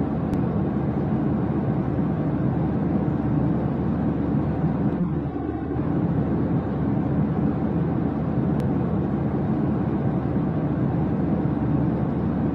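A steady low rumble of continuous noise at an even level, with two faint clicks, one near the start and one about two-thirds of the way through.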